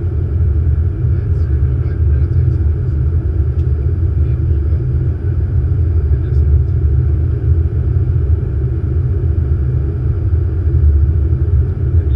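Steady low rumble of airflow and engines heard inside an Airbus A380 cockpit on approach, with a few faint ticks.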